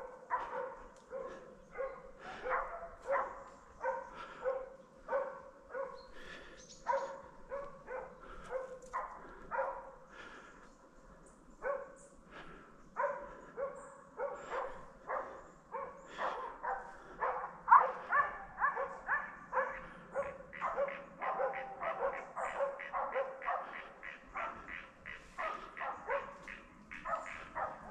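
Several hunting dogs barking at bay on a bear, short repeated barks about one to two a second that quicken and overlap from about halfway through.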